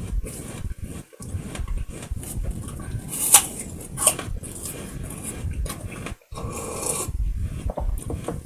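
Close-up chewing of a hard apple: irregular wet crunches and mouth noises, the sharpest crunch about three seconds in.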